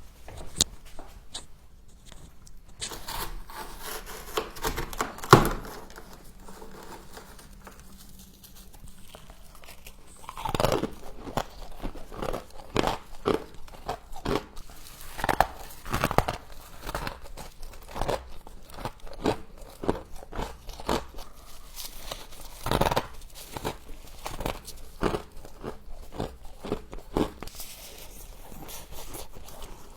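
Close-up crunching and chewing of frost, one bite after another in irregular crisp crunches. The loudest bite comes about five seconds in, and there is a quieter stretch before the crunching grows dense again.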